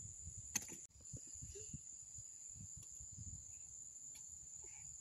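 Insects singing a steady, high-pitched drone, with an uneven low rumble on the microphone underneath. A sharp click comes about half a second in, followed by a brief dropout.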